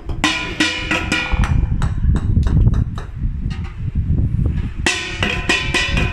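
Golf balls clacking against a hard surface and each other: a rapid, uneven run of sharp hard knocks, with two bursts of ringing rattle near the start and near the end.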